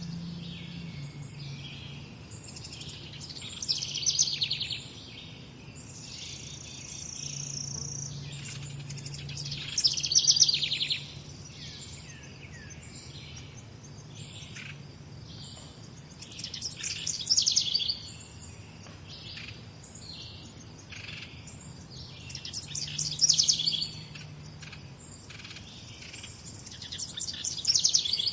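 Morning birdsong: several birds chirping, with a louder, rapid trilled song phrase repeated about every six seconds over quieter calls.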